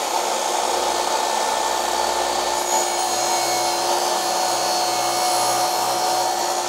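Compound miter saw running at full speed with a steady motor whine, its tilted blade lowered through a clamped wooden board in a compound bevel-and-miter cut.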